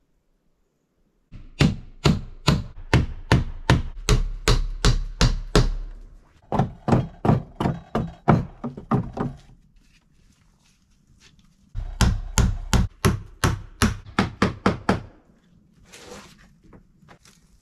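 A hammer striking wood in quick, even blows, about three a second, in three runs with short pauses between them; the middle run is softer.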